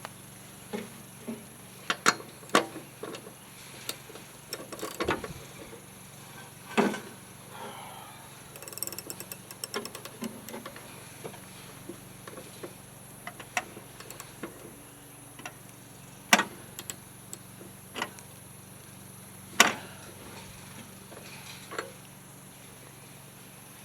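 Hand tools working on a push mower: irregular sharp metal clanks and clicks, with a stretch of quicker small clicking partway through, like a ratchet.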